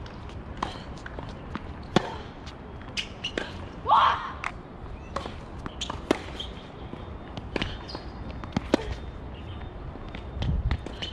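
Tennis rally on an outdoor hard court: sharp pops of the ball off racket strings and off the court, irregularly spaced, the loudest about two seconds in. A short human voice sound about four seconds in.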